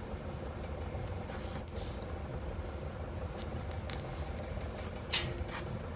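A steady low background hum with faint rustles, and one sharp short click about five seconds in.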